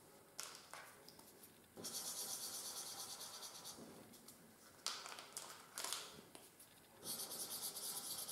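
Felt-tip marker scribbling on paper in quick, fine strokes, twice for a couple of seconds each, while a flower is coloured in and drawn. A few sharp clicks fall between the two stretches of scribbling.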